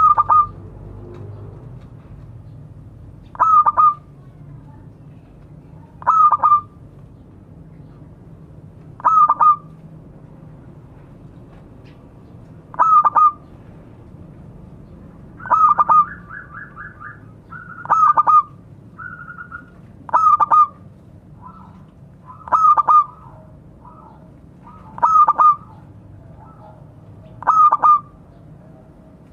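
Zebra dove (perkutut) cooing: a loud call phrase repeated about every two and a half seconds, about a dozen times. From about the middle on, softer, quicker notes come between the phrases.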